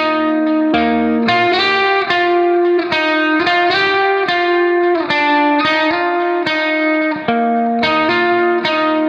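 Background music: a melody of plucked notes, each struck sharply and changing about twice a second.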